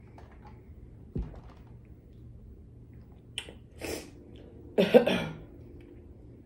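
A woman coughing in short bursts, the loudest cough about five seconds in, with a dull thump about a second in.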